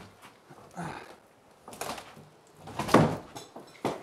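Heavy old wooden plank doors being wrenched and shoved, giving a string of wooden knocks and scrapes; the loudest is a longer scrape about three seconds in.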